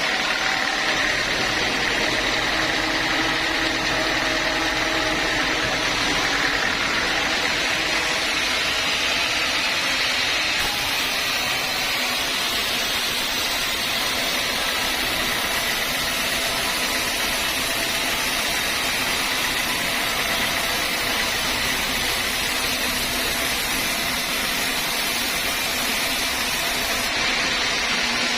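Sawmill machinery running steadily: a continuous mechanical drone with a hiss over it.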